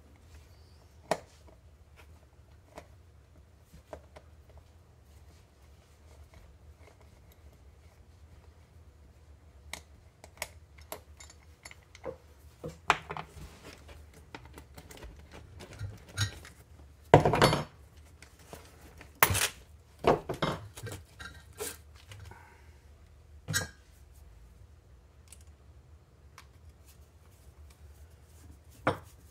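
Hand tools and metal and plastic RC truck parts being handled on a workbench during disassembly: irregular clicks, taps and clatters, with the loudest clatter a little past the middle, over a low steady hum.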